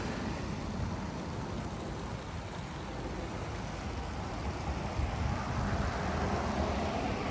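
Wind buffeting the microphone, a steady rumbling hiss, over a Lego City passenger train with two motorised locomotives running along plastic track.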